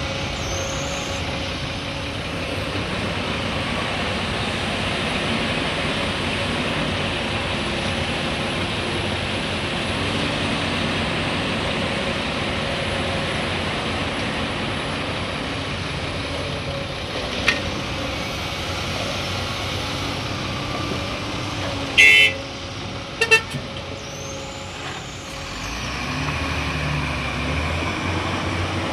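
Heavy diesel machinery running steadily, with a short loud horn toot about two-thirds of the way through, followed a second later by two quick shorter toots.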